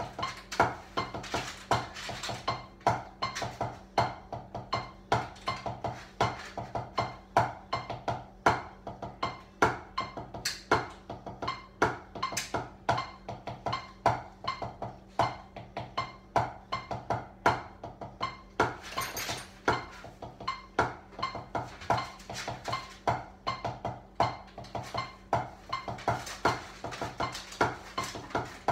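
Drumsticks beating a fast, steady rhythm on kitchen pots, pans and utensils on a countertop, played as a makeshift drum kit, with a clattering metallic ring on the hits. A brief hissing crash comes about two-thirds of the way through.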